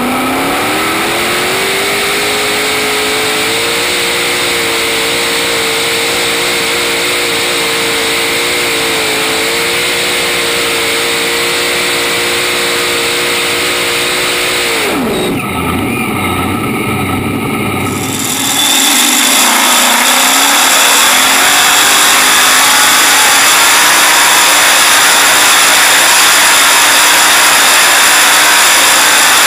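Pulling tractor's V8 engine heard up close from the on-board camera: it rises in pitch over the first few seconds and holds steady for about fifteen seconds, dips, then from about eighteen seconds runs flat out, louder and harsher, under full load on the pull.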